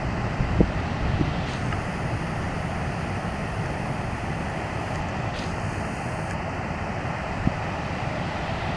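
Steady wind rumbling on the microphone over the wash of ocean surf, with a few faint knocks early on and again near the end.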